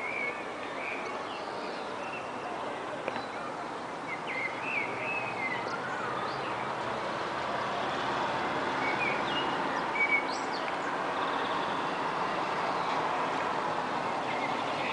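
Birds chirping now and then over a steady hiss of outdoor background noise, which grows a little louder about halfway through.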